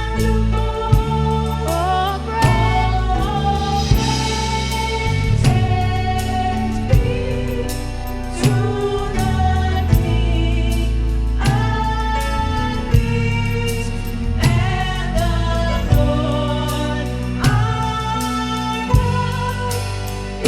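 Gospel worship band music with a steady beat, a strong drum hit about every second and a half, under sustained and gliding instrument or vocal lines.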